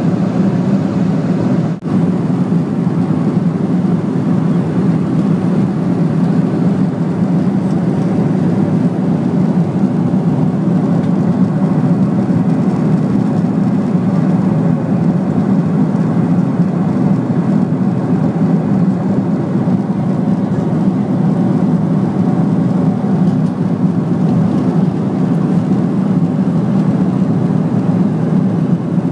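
Steady cabin noise of a Boeing 747 in cruise: a constant low rush of jet engine and airflow noise heard from a window seat by the wing. There is a brief dropout about two seconds in.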